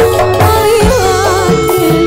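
A woman singing a Javanese song, her held notes wavering with vibrato, over instrumental accompaniment with repeated low drum strokes.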